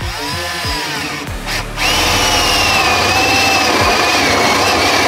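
Cordless drill with a 1-inch tile-and-concrete bit boring through the countertop under the sink's faucet hole. The motor whine rises and falls briefly at first, then about two seconds in it settles into a loud, steady cutting whine.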